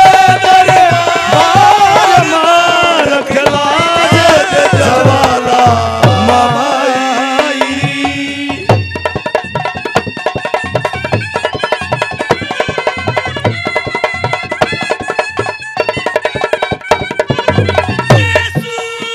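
Haryanvi ragni folk song: a singer's voice wavers over a steady hand-drum rhythm. About eight seconds in the voice stops, and a held reed-instrument melody, a clarinet, carries on over the same drumming.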